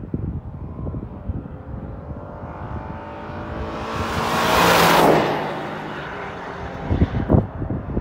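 Ford Transit van's gasoline V6 accelerating hard toward and past, its engine note climbing in pitch, loudest about five seconds in, then fading away. Gusts of wind buffet the microphone near the end.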